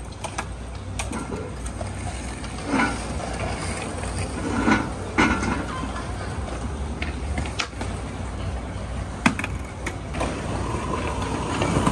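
Steady low rumble of outdoor city background with scattered sharp clicks and knocks and faint distant voices. Right at the end a loud clatter of a skateboard on stone pavement begins.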